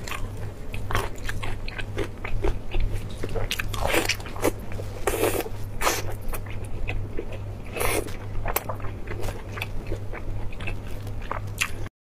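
Close-miked mouth sounds of a person biting and chewing sticky braised pork, with many short wet smacks and clicks over a steady low hum. It all cuts off abruptly near the end.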